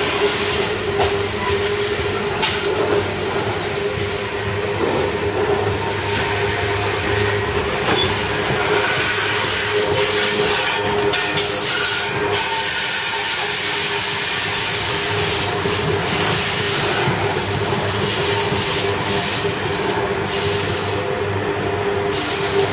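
A long coal train's steel wheels rolling past on the rails, with a steady ringing tone and scattered knocks over a constant rolling noise.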